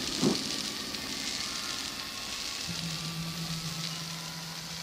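Heavy rain, a steady even hiss. A low steady hum comes in a little over halfway through.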